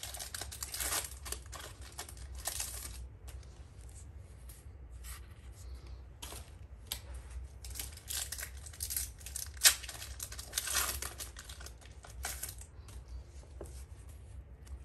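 Foil wrapper of a Pokémon trading card booster pack being torn open and crinkled, with the cards inside handled: an irregular run of crisp tearing and rustling with a couple of sharp snaps.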